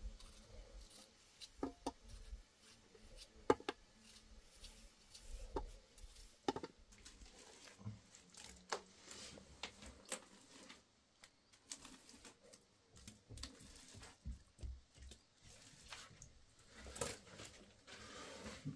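Scattered light clicks, taps and soft rustles of things being handled, irregular, with sharper knocks about three and a half and six and a half seconds in.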